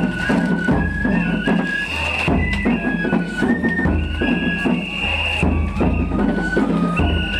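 Japanese festival hayashi music played on a float: a high flute melody in held notes that step from pitch to pitch, over steady drumming.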